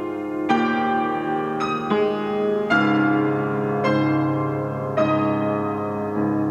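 Slow, gentle solo piano music: chords struck about once a second and left to ring into one another.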